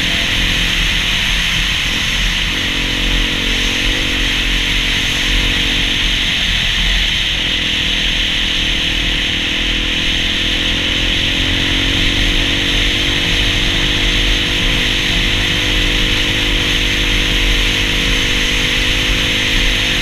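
Dirt bike engine running steadily at cruising speed on a gravel road, its note rising and falling slightly with the throttle, over steady wind and road noise.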